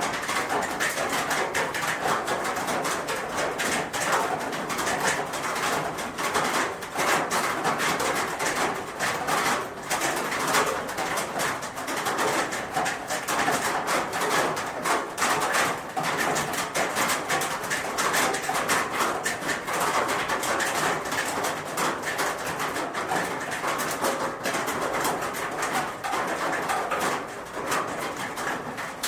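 Rain falling on a roof: a dense, steady patter of countless drop strikes that neither builds nor fades.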